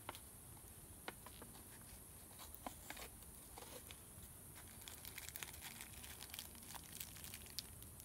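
Faint crinkling and tearing of a small paper packet being handled and opened by hand, with scattered light crackles that grow busier in the second half.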